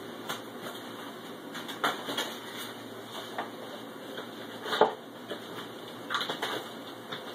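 Hands rummaging through packaging: scattered light knocks, taps and rustles, with the sharpest knock near the five-second mark and a short cluster of taps about a second later.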